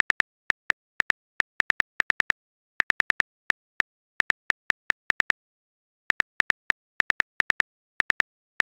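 Smartphone keyboard key-tap clicks from a message being typed, short identical ticks in quick irregular runs with a brief pause midway.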